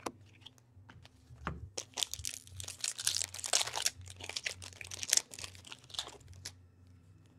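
A wrapper on a pack of hockey trading cards being torn open and crinkled, a few clicks and then about four seconds of dense crackling.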